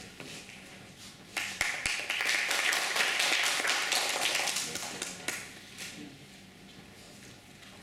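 Audience applauding, starting about a second and a half in and dying away about four seconds later.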